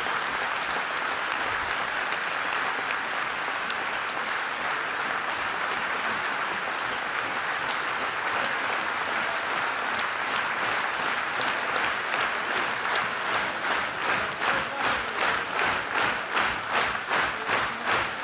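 Large audience applauding. About two-thirds of the way through, the scattered clapping turns into rhythmic clapping in unison, roughly three claps every two seconds.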